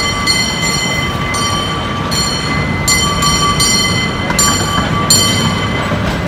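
San Francisco cable car running on its track, giving a steady high whine, with a higher squeal that cuts in and out, over a low street rumble.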